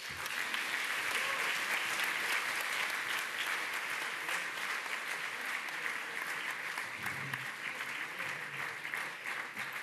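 Audience applauding, a dense steady clatter of many hands clapping that breaks out at once and keeps going.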